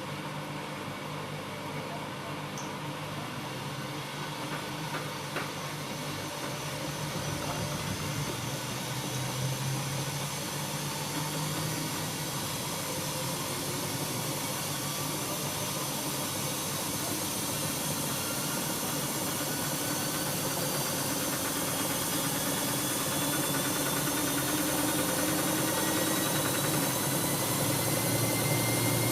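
Siemens Siwamat iQ washing machine running, its steady hum and whir growing gradually louder while a faint motor whine slowly rises in pitch, as the drum speeds up.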